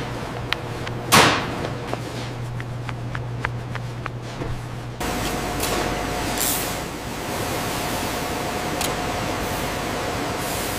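Leather workshop ambience: a steady low hum with scattered light taps and a loud swish about a second in. At about five seconds it switches abruptly to a steady factory hiss with a faint held tone.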